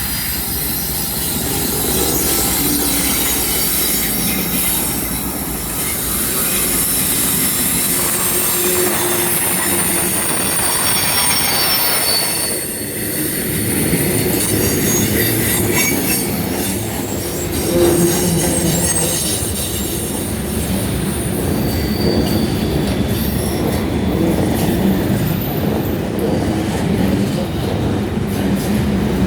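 Freight train cars rolling past on a connection track, their steel wheels squealing against the rail above a steady rumble and clatter of wheels over the joints.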